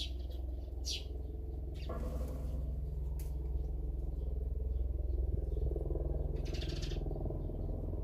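A few short songbird chirps, with a longer run of chirping about six and a half seconds in, over a steady low rumble that picks up a wider rushing noise about two seconds in.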